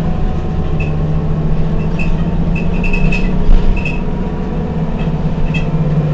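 Heuliez Access'Bus GX 127 city bus's diesel engine idling steadily with a low hum, with a few short high squeaks and a brief knock about three and a half seconds in.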